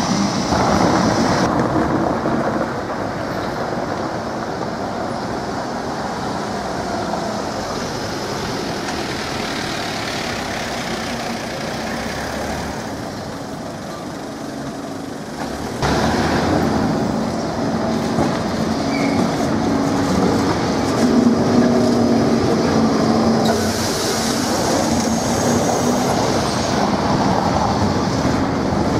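Lisbon heritage trams on route 28 running along street rails: steel wheels rumbling and clattering on the track under a steady motor hum, louder in the second half.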